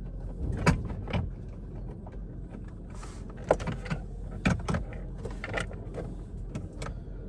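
Irregular clicks and knocks of small screws and a hand tool against the module's metal mounting bracket as 8 mm screws are set back in by hand.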